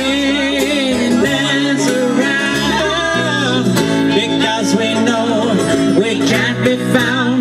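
Live band music between sung lines of the song: guitar accompaniment with a wavering melody line over it.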